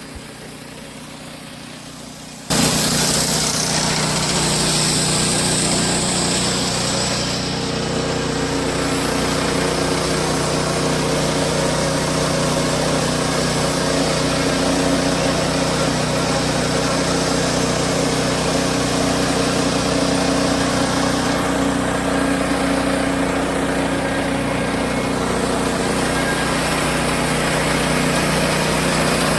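Wood-Mizer LX50 Super sawmill's engine running steadily under load as its band blade saws through a sappy larch log, a loud, even drone with a hum. It cuts in suddenly about two and a half seconds in, after a quieter start.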